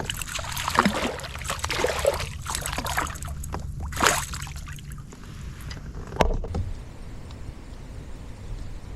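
A small spotted bass being brought in to a kayak: irregular splashing and knocks for about the first five seconds, one sharp knock about six seconds in, then quieter.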